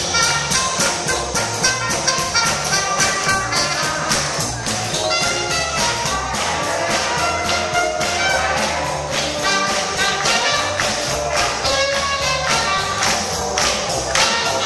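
Live band playing jazz-style dance music, with brass horns over a steady drum beat.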